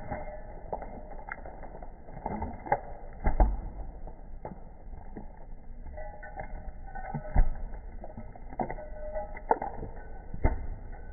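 An animal eating: irregular small clicks and knocks, a second or so apart.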